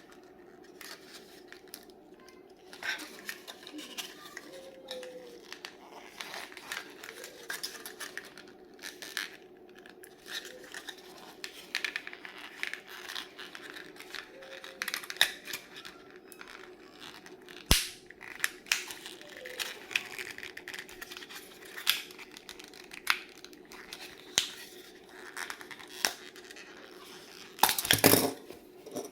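Packaging of a small die-cast model car being handled and opened by hand: plastic and cardboard crinkling, tearing and scraping, with scattered clicks and a louder rustle near the end.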